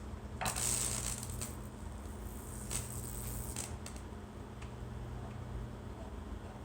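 Lichtenberg fractal-burning machine's high-voltage transformer humming steadily, with short sizzling crackles of current arcing across the baking-soda-wetted wood: one burst about half a second in, then a few briefer ones around three seconds in. The burn is struggling to take hold.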